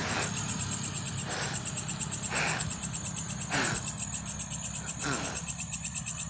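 A high, rapidly pulsing insect trill, cricket-like, running steadily throughout. About five short rustles break in over it, a second or so apart.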